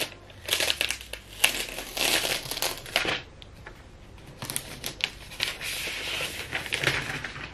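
Thin protective sheet crinkling and rustling as it is peeled off a new MacBook Pro, in two bouts with a short lull between them.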